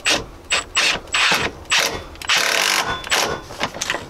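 Milwaukee FUEL cordless ratchet running in about ten short stop-start bursts, each with a brief high motor whine and ratcheting, as it snugs down the bolts of a GM truck door hinge-pin kit.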